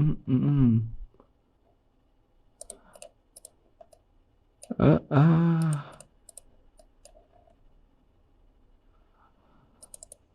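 Light computer mouse clicks in a few scattered groups, with short bits of a man's voice near the start and in the middle.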